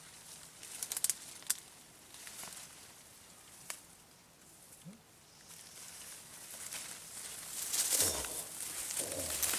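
Leaves rustling and twigs snapping as someone pushes through dense brush: a few sharp twig cracks about a second in, then louder brushing and crackling of branches toward the end as they come close.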